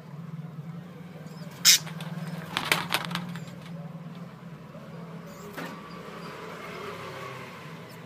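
Sharp clicks and taps from a budgie moving about its cage and coconut-shell nest box: one loud click about two seconds in, a quick cluster just before three seconds, and another after five seconds, over a steady low hum.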